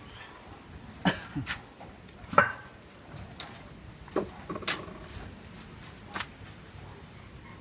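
Irregular knocks and clicks of the back cover panel being handled and fitted onto a speaker box, about six in all, the sharpest about two and a half seconds in.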